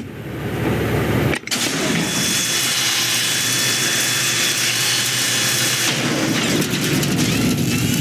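Film sound effect of a rocket strapped to a toy radio-controlled car firing with a steady, loud hiss as it drives the car along the road. The sound cuts out sharply for a moment about a second and a half in.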